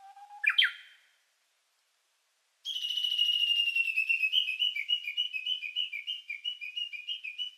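Whistle-like sound effects: a quick rising whistle sweep, then after a pause a long high whistle tone that slides slightly down and breaks into a quick run of short falling chirps.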